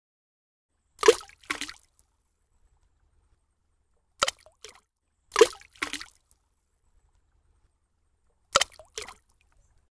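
Cartoon water sound effects: four short splashy drops, each a sharp plop followed by a softer one about half a second later.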